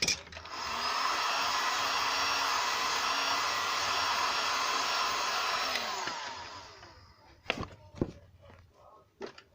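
A hot-air blower runs steadily with an even rushing hiss for about six seconds, then winds down. A few sharp knocks follow near the end.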